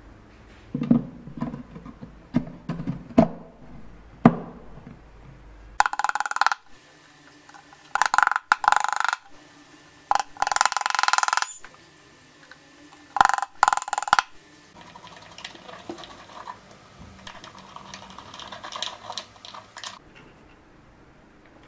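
Hand-tool work on an old wooden chest: a few sharp knocks in the first four seconds, then four loud, harsh stretches of noise of about a second each while a lock is fitted. The last few seconds hold the lighter, choppy grind of screws being driven into a hinge with a hand screwdriver.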